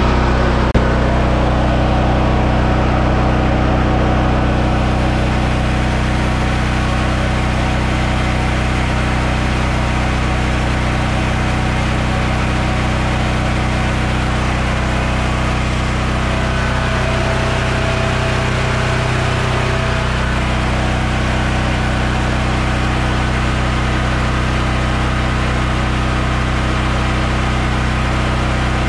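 BlackMax BM10700JR portable generator with a 13 hp Honda engine, running steadily with no load on its output.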